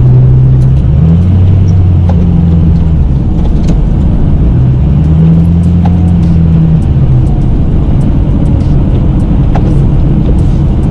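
Plow truck's engine running under load while pushing snow, its note stepping up about a second in and again between about five and seven seconds as the truck moves.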